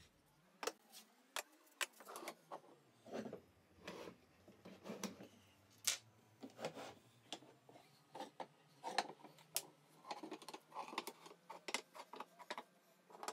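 Walnut end-grain strips being set down and shuffled into place by hand on a workbench: a string of irregular light wooden knocks and clacks with a few short scuffs.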